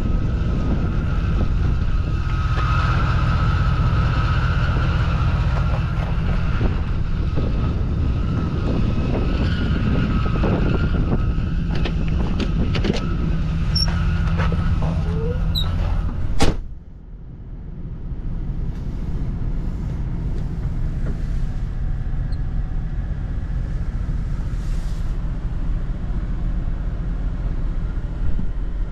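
2007 GMC 2500 HD pickup's engine idling steadily. About sixteen seconds in the driver's door shuts with one sharp thud, and the idle is heard more muffled from inside the cab after that.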